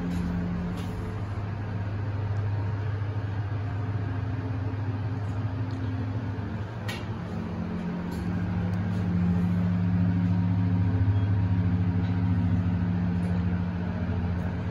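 Four-story hydraulic elevator travelling upward, giving a steady low hum with a second, higher tone above it. The hum dips briefly about seven seconds in, with a single sharp click, then returns louder.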